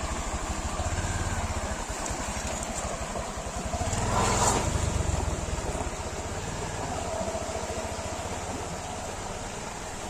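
Motorcycle engine running at low speed as the bike is ridden through a shallow rocky stream, with water splashing around the wheels. It gets louder for a moment about four seconds in.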